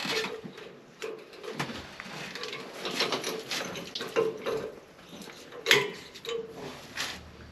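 Irregular knocks, clinks and scrapes of hand work on steam-boiler piping, with the loudest knock a little before 6 seconds in.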